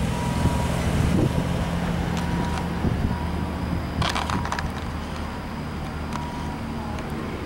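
Motor vehicle engine running steadily nearby as a low hum, with a brief high-pitched noise about four seconds in.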